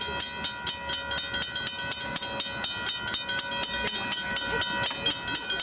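Railroad grade-crossing bell ringing rapidly and evenly, about four to five strikes a second, as the crossing signal warns of an approaching train.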